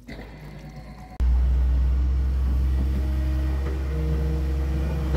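Wheeled excavator's diesel engine running, a steady low rumble with a hum above it that cuts in suddenly about a second in.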